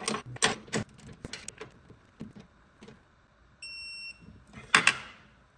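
A wrench ratcheting on a suspension bolt in quick clicks, then, about three and a half seconds in, a single electronic beep of about half a second from a torque wrench, signalling the set torque is reached. A sharp metallic clack follows near the end.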